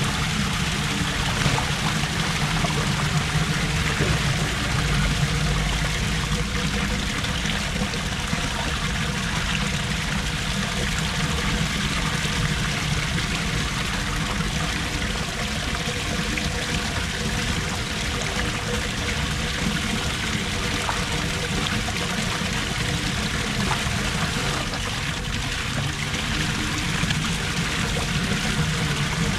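Floodwater pouring steadily down a street storm drain.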